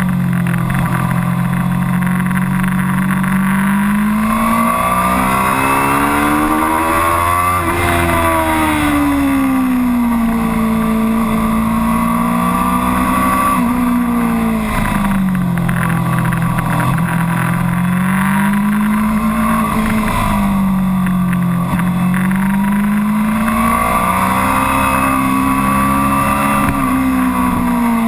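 Suzuki GSX-R600 K7 inline-four sportbike engine heard from an onboard camera at road speed, its revs climbing and falling several times as the rider works the throttle through the bends. The highest revs come about eight seconds in, with a steady rush of wind noise underneath.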